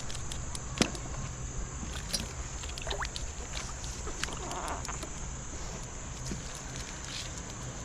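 Steady rushing of river water, with scattered small clicks and knocks and one sharper knock about a second in.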